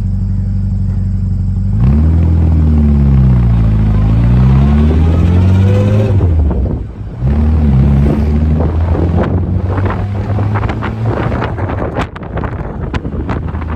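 A 1959 Austin-Healey Sprite's 948 cc A-series four-cylinder engine idles steadily, then revs as the car pulls away. Its note rises and falls, drops briefly at a gear change about seven seconds in, and picks up again. From about nine seconds, wind buffets the microphone more and more as the car gathers speed.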